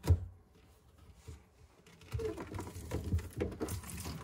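A sharp knock, then from about two seconds in, irregular pattering and clicking as water left in a disconnected dishwasher drain hose runs out into a shallow pan.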